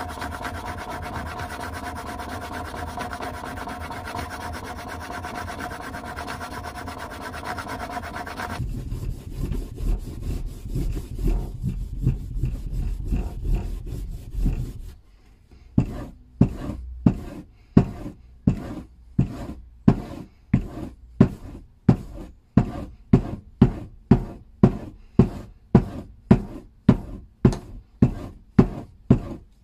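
A chisel in a honing guide is pushed back and forth on a sharpening stone, a steady scraping grind with a faint whine in it. After about nine seconds a bar of green polishing compound is rubbed onto a strop with a heavier, lower rub. In the last half the chisel is stroked along the charged strop, even swishing strokes about one and a half a second.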